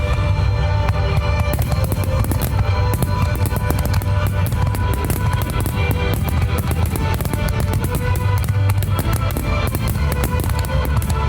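Music with a drum kit and guitar, loud and steady throughout.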